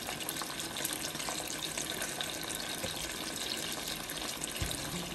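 Mackerel pieces frying in shallow oil in a non-stick frying pan: a steady sizzle with fine crackles.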